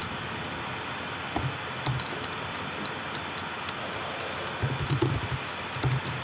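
Typing on a computer keyboard: quick keystrokes in two short runs, one about a second and a half in and another near the end, over a steady background hiss.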